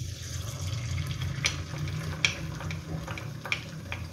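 Beaten egg sizzling in hot oil in a kadai: a steady hiss that starts as the egg hits the oil, with scattered sharp pops.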